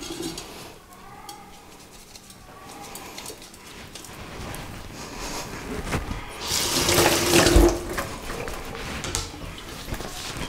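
Water running from a tap into a sink, swelling to its loudest about halfway through, then easing, with a few short knocks.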